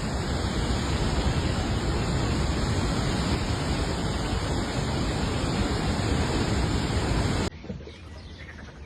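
Floodwater rushing, a loud steady noise with a deep rumble, which cuts off abruptly about seven and a half seconds in to a much quieter background.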